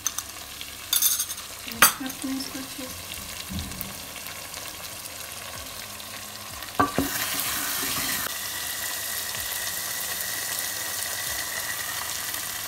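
Chicken pieces frying in masala in a steel pot as yogurt is spooned in and fried with them. Two sharp clinks of the spoon, about two seconds in and just before seven seconds, then a louder steady sizzle as the yogurt meets the hot oil.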